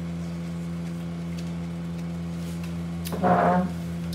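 A steady low hum of several even tones throughout. A little over three seconds in, a short, loud vocal sound of about half a second comes from the person eating.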